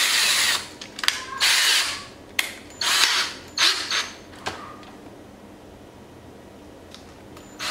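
Cordless drill run in short bursts to open and close its keyless chuck while the drill bit is changed, the chuck ratcheting as it is spun. About five bursts come in quick succession over the first four seconds or so, with a few sharp clicks between them.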